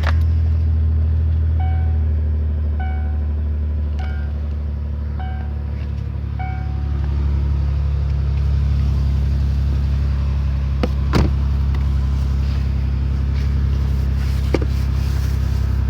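Car engine idling just after being started to warm up in the cold, a loud steady low hum that rises a little after about seven seconds. A dashboard warning chime beeps five times at an even pace in the first few seconds, and a few sharp clicks come near the end.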